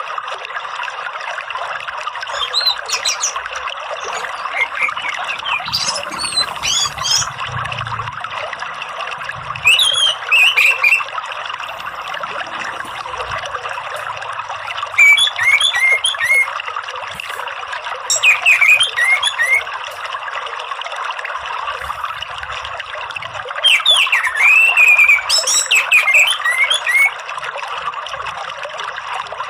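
Orange-headed thrush singing in short clusters of varied, quickly gliding high notes every few seconds, with a longer run of song near the end. A steady trickle of running water goes on beneath.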